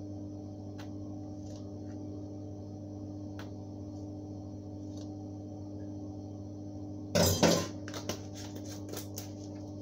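A seasoning container being handled at a glass bowl: a loud clatter about seven seconds in, then a run of small clicks. A steady low hum lies under it all.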